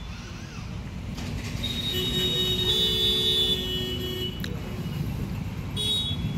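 A horn blowing for about two seconds, starting a little over a second in, with a short toot near the end, over a steady low rumble of engines.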